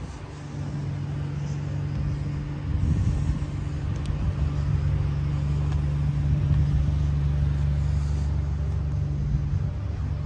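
A steady low mechanical hum, louder from about three seconds in.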